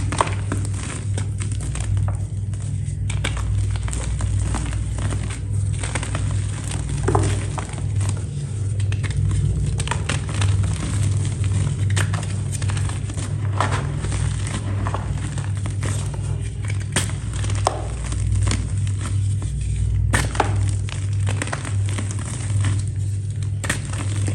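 A crisp, snappy material being crushed and crumbled by hand: an irregular run of sharp snaps and crackles. A steady low hum runs underneath.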